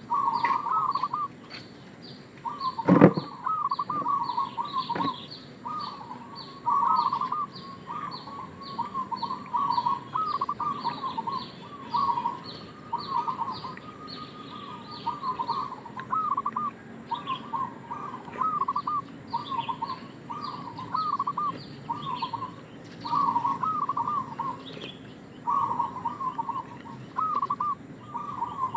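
Zebra dove (perkutut) singing its rapid rolling coo in short bursts, one phrase every second or two, over a steady run of high, quick chirps from another small bird. A sharp knock sounds about three seconds in.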